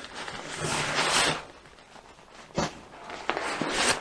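Rustling and scuffing of a Cordura nylon haversack and a packed fabric pouch being handled and pulled out of the bag. The rustling is longest in the first second and a half, and there is a light tick a little past halfway.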